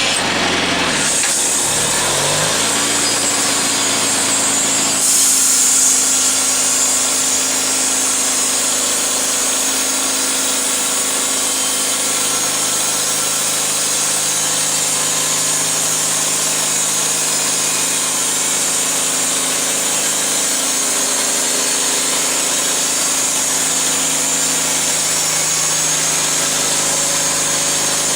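Homemade band sawmill's 15 HP engine running under load as the band blade saws through a white ash log. The engine pitch drops and settles about a second in, and the hiss of the blade in the wood grows louder about five seconds in, then the cut runs on steadily.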